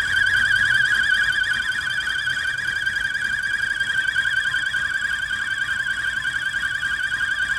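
BMW N52 straight-six engine whistling from its oil filter housing: one steady high whistle with a fast warble in pitch. The uploader puts it down to a crushed oil filter element in the housing.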